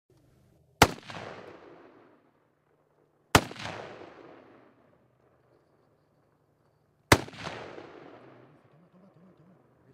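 Three gunshots in a hunt: about a second in, a few seconds later, and again near the end. Each is a sharp crack that rings out in an echo over the next second or so.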